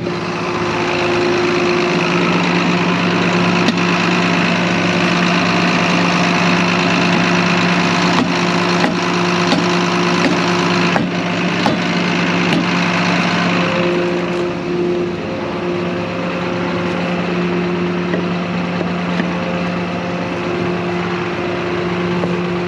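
Tractor engine running steadily at a constant speed, with a few sharp clicks about a third of the way through.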